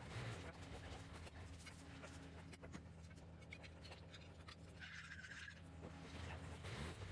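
Faint low engine hum, with light scratching and rustling close by and a brief high tone about five seconds in.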